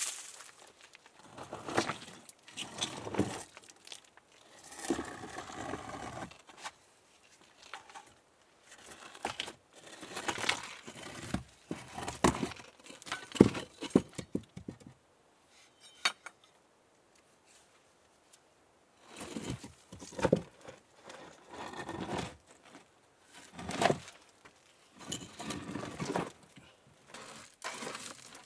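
Rocks being shifted and set by hand, stone scraping and grinding on stone and gritty ground, in irregular bursts with sharp knocks, the sharpest about halfway through and a short pause after it.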